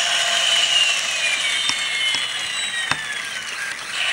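Matchbox Elite Rescue Strike Hawk toy helicopter running its motorised rotors and electronic sound effects: a whirring hiss with a whine that slowly falls in pitch, and a few sharp clicks partway through.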